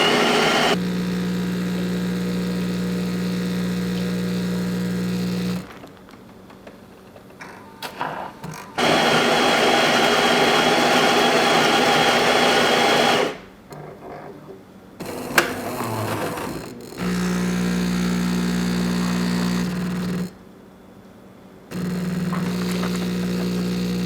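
Jura E8 super-automatic espresso machine working through an extra-shot latte macchiato: a steady pump hum for several seconds, a short pause with a few clicks, then the built-in grinder grinding beans for about four seconds as the loudest sound, then the pump humming again in two spells as the espresso brews.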